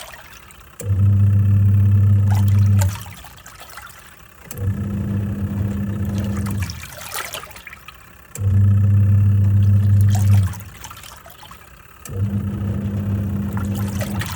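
Twin-tub washing machine agitating a load: the motor hums for about two seconds, stops as the pulsator reverses, and starts again, four times over, with water sloshing in between.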